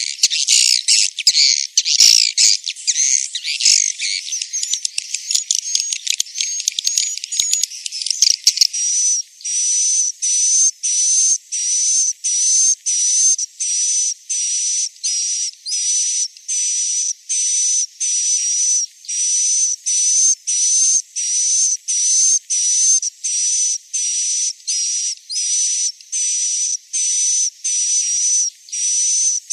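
Swiftlet roosting-lure recording of edible-nest swiftlet chirps. For the first nine seconds or so, many chirps overlap in a dense twittering. Then it settles into an even string of short, high chirps, about two a second.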